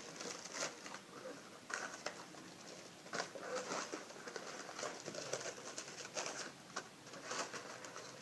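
Hands handling a cardboard gift box and its packaging: irregular soft rustling with light taps and crackles.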